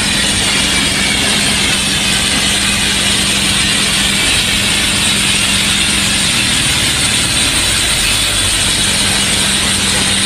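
Loud, steady machine noise with a constant low hum, unchanging throughout.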